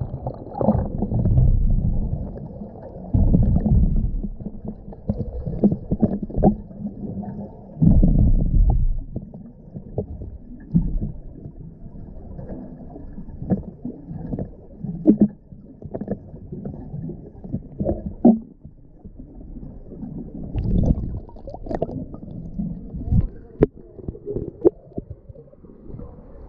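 Muffled underwater sound from a GoPro held below the surface: low, uneven rumbling and sloshing of water around the camera housing, with scattered sharp knocks and clicks.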